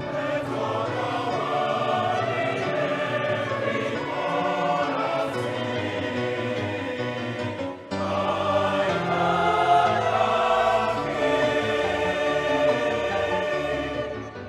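Choral music: a choir singing sustained chords, breaking off briefly about halfway through and then resuming.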